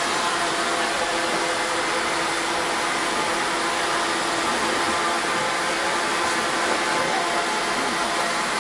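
Savannahlander diesel railmotor running along the track, heard from inside the cab: a steady engine hum with a few held tones over an even rushing noise from the running gear.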